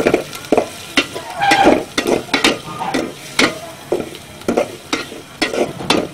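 A flat metal spatula scraping and knocking against an aluminium pot while stirring sliced onions sautéing in hot oil. The strokes come two or three times a second over a steady sizzle.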